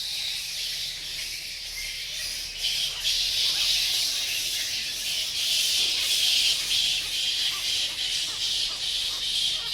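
Birds chirping in a dense, steady high-pitched chorus that gets louder nearly three seconds in.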